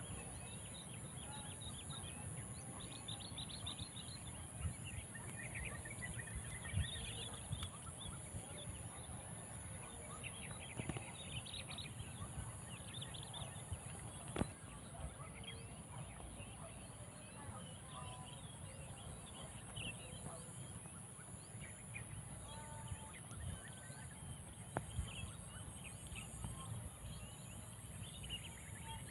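Outdoor ambience of many short bird chirps and calls scattered throughout, over a steady high-pitched insect drone and a low wind rumble.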